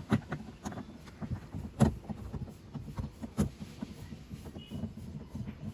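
Irregular clicks and knocks of a Phillips screwdriver working a screw out of a car's plastic interior door trim. The loudest knocks come about two and three and a half seconds in.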